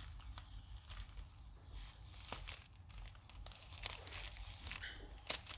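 Plastic packet of foam beads crinkling and rustling in the hands as it is worked at to get it open, with scattered small clicks and crackles.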